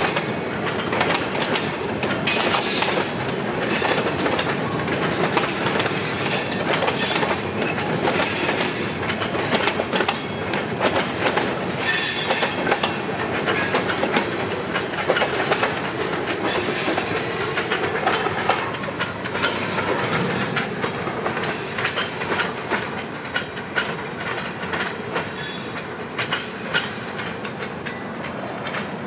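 Freight train cars rolling past at close range, steel wheels clattering continuously over the rail joints.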